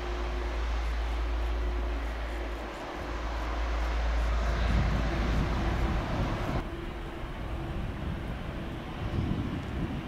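Twin-engine jet airliners taxiing. First comes the steady engine noise of a Boeing 777, building a little toward the middle. After a sudden change about two-thirds through, the duller, quieter engine noise of a Boeing 737 follows.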